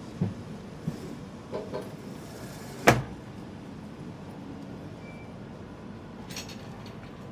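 Passenger train coach running with a steady low rumble, broken by a few knocks and one sharp bang about three seconds in, like a door or fitting slamming in the coach.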